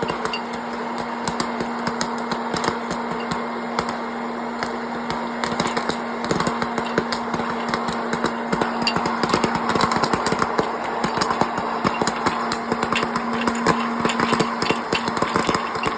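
Hot-air popcorn popper running: the blower motor hums steadily over a rush of air while kernels pop in a stream of sharp pops that grows busier partway through.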